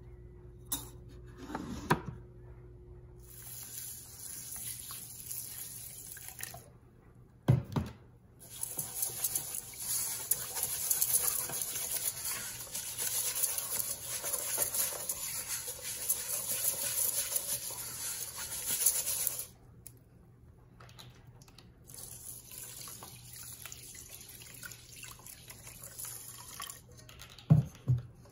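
Rice being washed by hand: tap water runs into the pressure-cooker pot for about ten seconds, hissing, while a hand swishes the grains. Then comes a quieter swishing of rice in the water. A few knocks, the loudest near the end as the pot is set down on the stone counter.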